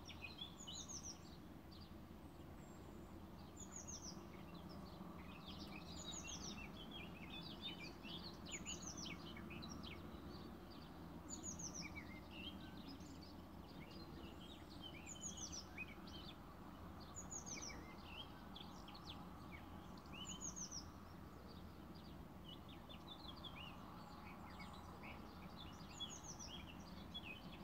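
Wild birds singing and chirping: phrases of quick falling notes come every two to three seconds, over a steady low background rumble.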